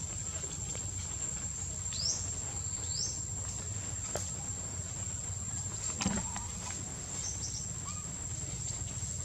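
Steady high-pitched insect drone in tropical forest over a low rumble, with a few short high chirps about two, three and seven seconds in and a sharp click about six seconds in.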